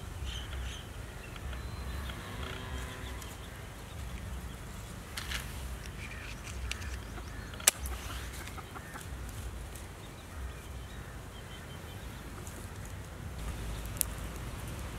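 Chickens clucking in the background over a low outdoor rumble, with a single sharp strike about halfway through as a match is struck and a smaller click near the end.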